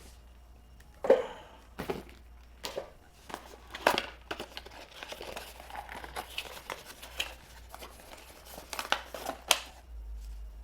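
Packaging being opened and handled: plastic and paper crinkling and rustling, with irregular sharp clicks and knocks, the loudest about a second in and about four seconds in.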